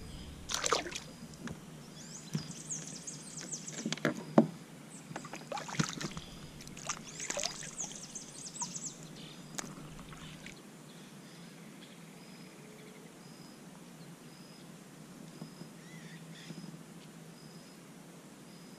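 A sit-on-top kayak being paddled off on calm water. Paddle splashes and drips with light knocks on the plastic hull come in two bunches over the first ten seconds or so, then the water goes quiet and only a faint outdoor background remains.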